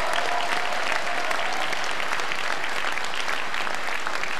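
Large audience of seated delegates applauding steadily.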